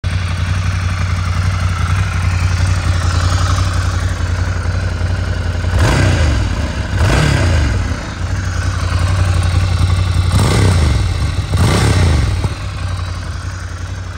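2022 Ducati Scrambler 800 Urban Motard's air-cooled L-twin engine idling steadily. About six seconds in it is revved twice, and it is revved twice again about ten seconds in; each blip rises sharply and falls back to idle.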